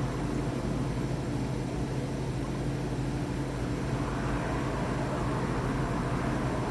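Steady hum and hiss of running ventilation equipment, with a few constant low tones and no change in level.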